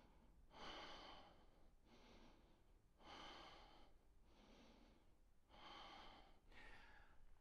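Faint, slow, deep breathing by a man: about three breaths in and out, each breath lasting under a second with short pauses between.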